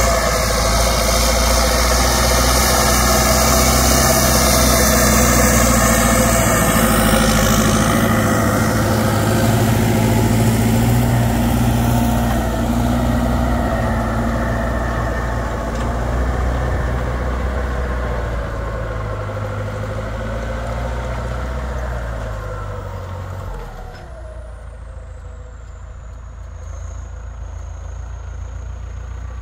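Belarus MTZ 1025.4 tractor's straight-piped, turbocharged four-cylinder diesel running hard, as under ploughing load. It fades gradually, and near the end the revs drop and a high turbo whistle glides down and settles.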